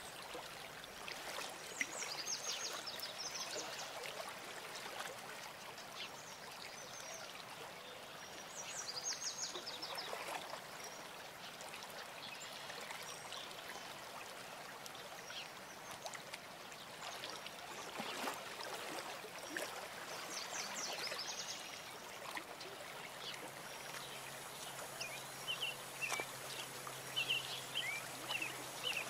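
Steady trickling and running water at a small cement garden pond, with short high chirping trills now and then.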